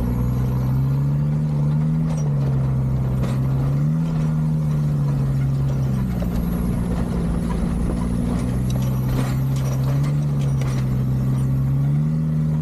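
Land Rover Discovery 2's Td5 diesel engine pulling at low revs along a rough lane, its note rising and falling gently a few times, with occasional knocks and rattles as the vehicle rides over bumps.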